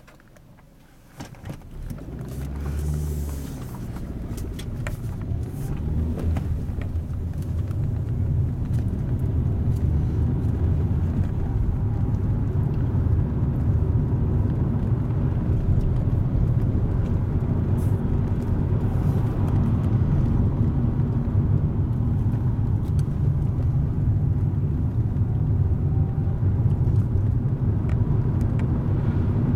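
A car pulling away and gathering speed on a narrow tarmac road. The low rumble of engine and tyres builds over the first several seconds, then holds as a steady drone while it drives on.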